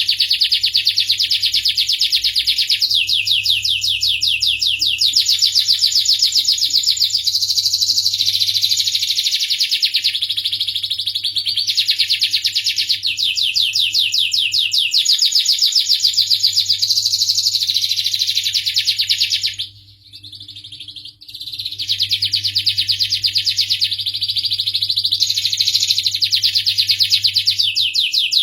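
Domestic canary singing a long, continuous song of rapid trills and warbles, breaking off for about a second roughly two-thirds of the way through before going on.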